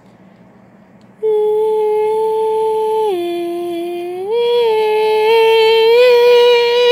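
About a second in, a woman's voice begins humming three long, wordless notes: a steady first note, a lower second, and a higher third held until it stops.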